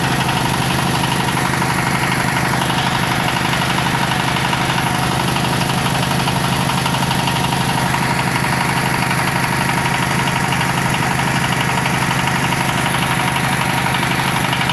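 The engine of a bore-well drilling machine running steadily, with a fast, even beat.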